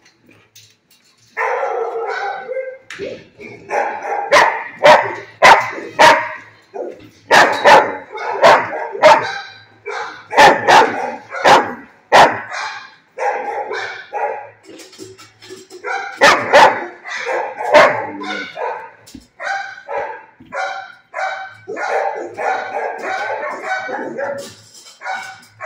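Young shelter dog barking over and over, loud sharp barks in quick runs of two or three, starting after about a second and a half of quiet.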